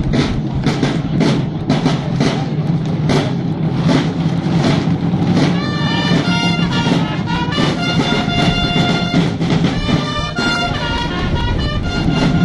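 Marching side drums of a flag-throwing troupe beating a steady rhythm, about three strokes a second; about five seconds in, trumpets join with long held notes over the drums.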